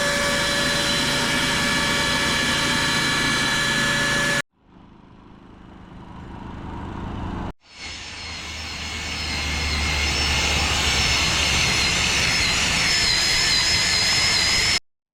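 A motor-driven machine running steadily with a whine of several held tones, in three cut-together clips. The later two start quieter and rise in level as the machine spins up.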